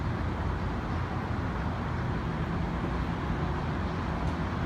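Steady city traffic rumble, an even low noise with no single event standing out.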